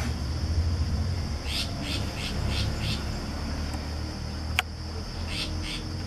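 A bird's call: five short scratchy notes in quick succession, a sharp click, then two more notes, over a steady high insect drone.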